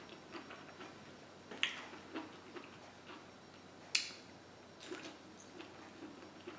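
Eating sounds: quiet chewing and lip smacks with a few sharp clicks. The loudest comes about four seconds in, as a sausage link is bitten into.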